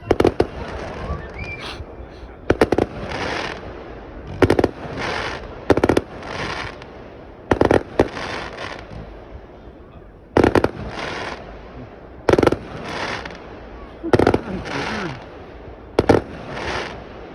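Fireworks display: about ten sharp bangs of shells bursting overhead, roughly one every two seconds, each followed by a brief noisy tail.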